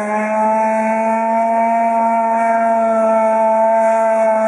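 Petrol engine of a radio-controlled model racing boat running flat out, holding a steady high pitch as the boat skims across the water.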